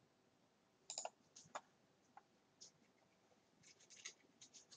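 Faint computer mouse clicks: a few scattered clicks around a second in, then a quick run of clicks near the end.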